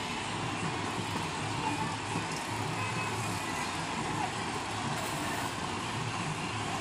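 Several farm tractor engines running as the tractors move slowly in a line, a steady low hum.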